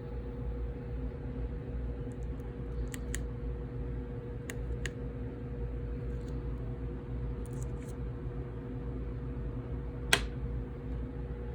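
Steady low hum with a constant tone, broken by a few sharp clicks: a pair about three seconds in, another pair near five seconds, and the loudest about ten seconds in.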